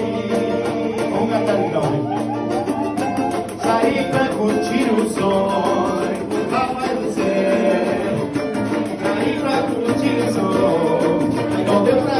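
Samba drum ensemble playing a steady batucada rhythm, with voices singing the song over the drums.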